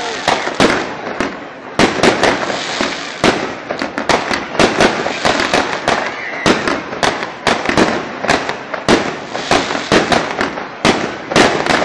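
Fireworks display: aerial shells bursting in quick succession, two or three sharp bangs a second, over a constant noisy background.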